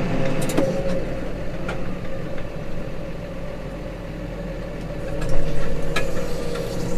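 Case Maxxum 150 tractor's diesel engine running steadily while pulling a plough, with a few light clicks. It grows louder about five seconds in.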